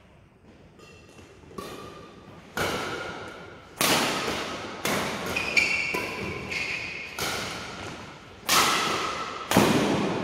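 Badminton rackets striking a shuttlecock in a doubles rally: a string of about eight sharp hits roughly a second apart, each echoing in the hall.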